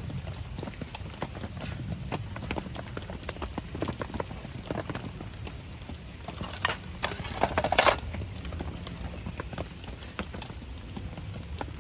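Wood campfire crackling with scattered sharp pops, and a louder burst of crackling about seven seconds in.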